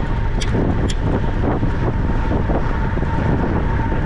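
Loud, steady wind rumble on the microphone, with a faint steady tone underneath and a couple of sharp clicks in the first second.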